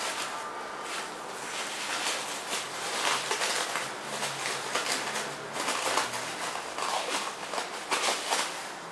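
Plastic cling film crinkling and crackling as it is handled around a rolled cake, an irregular run of crackles.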